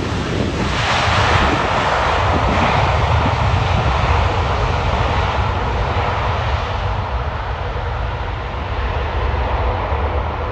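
Jet airliner landing past the microphone: a loud rush of jet engine noise that swells about a second in, then slowly fades, over a low wind rumble on the microphone.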